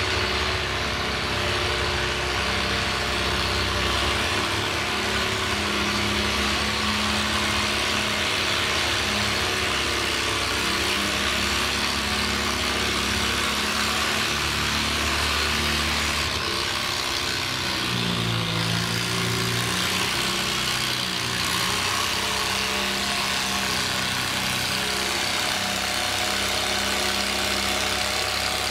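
Farmall tractor's engine running steadily under load as it drags a weight-transfer sled at walking pace. Its note shifts for a few seconds about two-thirds of the way through.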